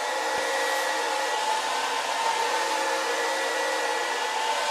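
Cooling fan of an NF-9000 variable frequency drive running, a steady, noisy whir with a held whine in it.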